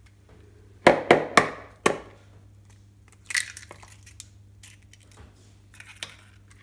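A raw egg knocked against a plastic mixing bowl to crack it: four sharp knocks within about a second, then a shorter crackle of the shell being broken open a couple of seconds later.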